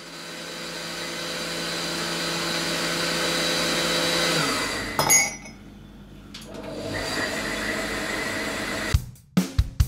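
Countertop blender motor running, then stopping about four and a half seconds in with a click; it runs again from about six and a half seconds. Music with a drum beat comes in near the end.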